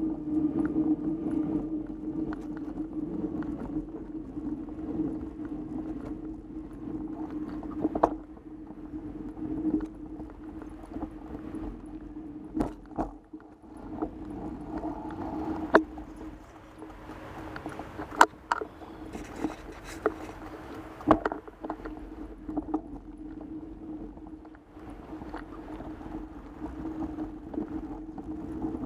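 Mountain bike riding fast over a dirt singletrack trail: a steady rolling hum, with sharp knocks and rattles every few seconds as the bike hits bumps.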